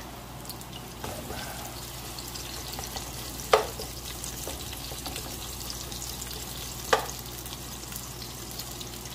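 Onion and garlic sizzling softly in oil in a nonstick pan over lowered heat, stirred with a spatula. Two sharp knocks of the spatula against the pan stand out, one about three and a half seconds in and another near seven seconds.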